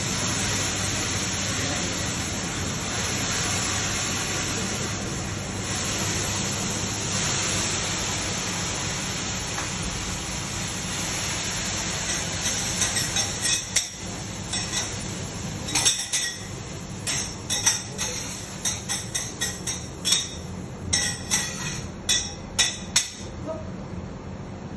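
Steady sizzling hiss from a hibachi griddle. From about halfway it is joined by a busy, irregular run of sharp metal clinks and taps, like a chef's spatulas striking the steel griddle.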